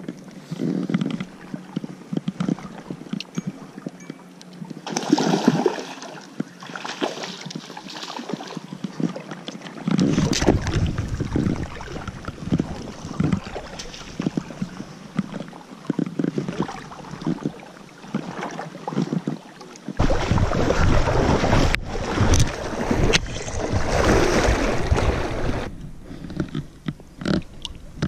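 Shallow river water sloshing and splashing around a wading angler, with wind rumbling on the microphone in stretches.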